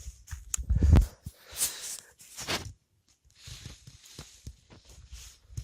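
Hunting skis moving through snow: a series of uneven scraping, shuffling strides.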